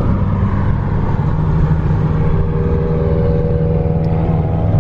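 Car engine running steadily with a continuous low drone, and a higher tone joining in about halfway through.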